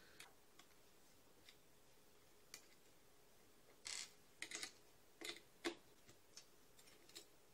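Faint, scattered small clicks and ticks of a precision screwdriver and tiny screws being worked on a multimeter's circuit board and set down on a wooden tabletop, with a quick run of clicks around the middle.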